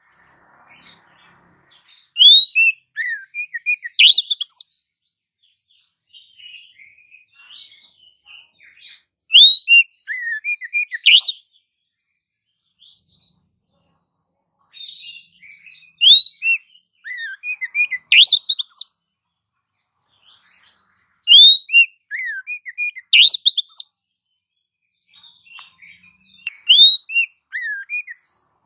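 Bird-lure recording of small birds chirping. Loud clusters of quick rising chirps and falling notes come every five to seven seconds, with fainter twittering in between.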